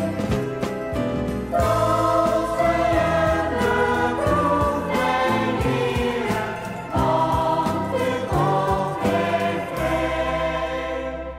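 Mixed choir of men and women singing a gospel song over a backing band with a steady beat. The song ends on a long held final chord over a low bass note, which dies away near the end.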